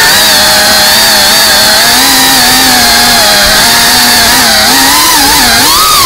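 FPV racing quadcopter's motors and propellers buzzing loudly, the pitch wandering up and down with the throttle and swinging quickly higher near the end.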